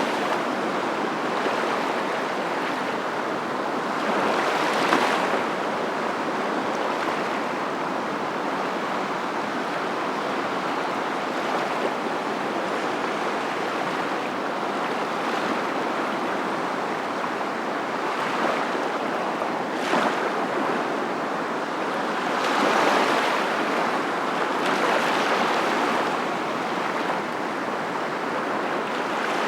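Steady rushing noise of moving water, swelling louder a few seconds in and again near the end.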